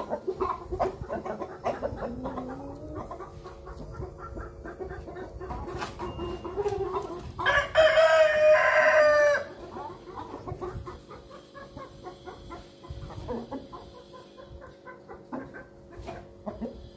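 Aseel rooster crowing once, a loud call of about two seconds near the middle, with chickens clucking around it.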